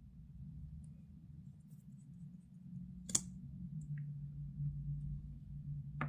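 Two sharp clicks, one about three seconds in and one near the end, over a low steady hum.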